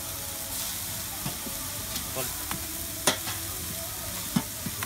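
Scrambled egg mixture sizzling in oil on a large flat black metal pan, stirred and scraped by a long metal spatula. Sharp clacks of the spatula on the pan come through the steady sizzle, the loudest about three seconds in and two more near the end.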